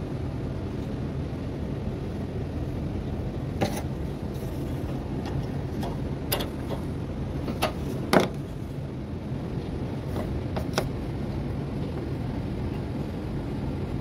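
Scattered sharp clicks of small parts being handled, the loudest about eight seconds in, over a steady low background rumble: the microwave's high-voltage diode and its terminal clips being worked loose for testing.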